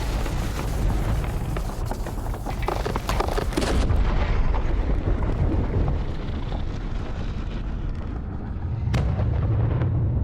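Film sound effects of heavy booms and explosions over a deep, continuous rumble. The high end drops away about four seconds in, and a sharp crack comes near the end.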